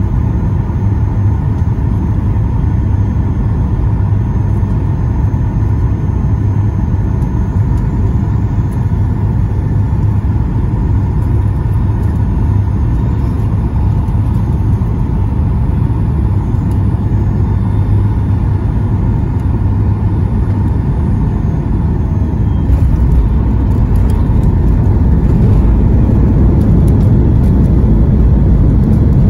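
Cabin noise of a Boeing 737 MAX 8 on final approach, heard from a seat beside the wing: a steady low rumble with a faint steady whine from its CFM LEAP-1B engines. About three-quarters through, a few knocks and a louder rumble as the wheels touch down and the jet rolls out on the runway.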